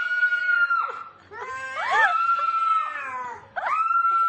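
A domestic cat yowling: three long drawn-out calls, each rising and then falling in pitch, the third starting about three and a half seconds in.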